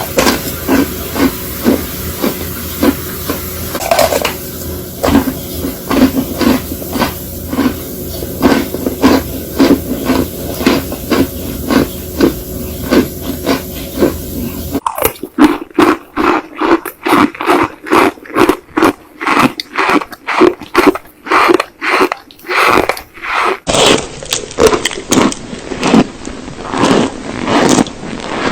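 Close-up crunching of a brittle material, an even run of crunches about two a second. The character of the crunch changes abruptly about halfway through and again near the end, as from three separate clips.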